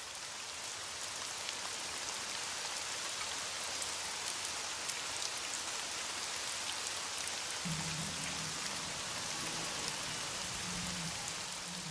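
Steady patter and hiss of falling water like rain, fading in at the start, with a faint low hum joining about two-thirds of the way through.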